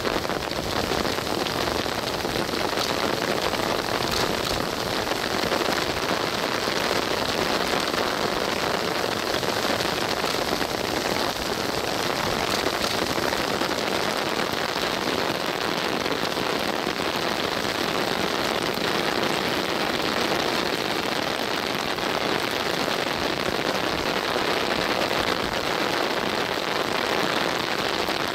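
Steady, even hiss of rain, with no single loud events, picked up by a rain-soaked camera microphone that muffles the sound.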